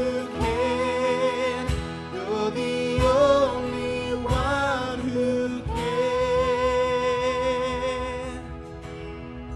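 Worship-team song: voices hold long sung notes in harmony over guitar, with a beat about every second and a half, fading down near the end.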